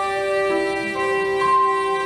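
Soprano saxophone playing a slow melody of long held notes that change pitch a few times, over a steady sustained accompaniment.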